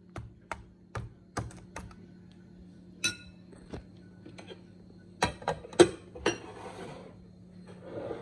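Metal cutlery clinking and tapping against a glass bowl and china plate while curry is scooped and served: a run of sharp clicks, one clink about three seconds in ringing on briefly, and the loudest taps a little past halfway. A steady low hum runs underneath.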